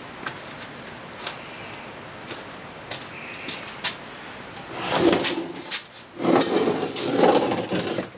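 Metal shop equipment (an outboard stand and a wheeled hand truck) being handled. A few light knocks and clanks come first, then two longer, louder stretches of rattling and scraping from about five seconds in.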